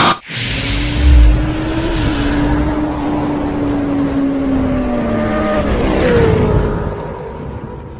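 Sound effect of a vehicle engine held at high revs, with a deep boom about a second in. The engine pitch slides down around five to six seconds in, and the sound fades out near the end.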